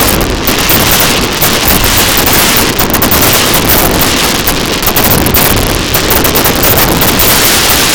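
Dense fireworks barrage: many bangs and crackles running together into a loud, continuous din.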